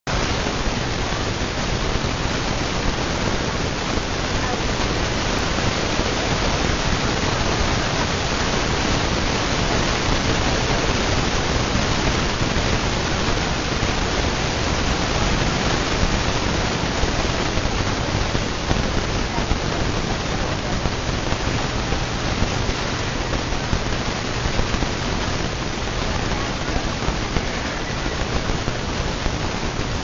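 52-inch Lasko ceiling fan running steadily: an even rushing noise that holds the same level throughout.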